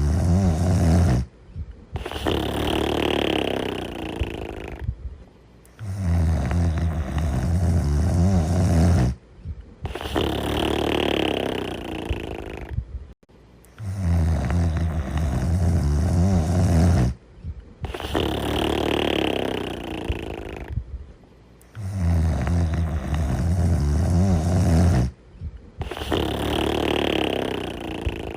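Steady snoring in slow breaths. A low rattling snore about three seconds long alternates with a softer, airier breath, the cycle repeating about every eight seconds.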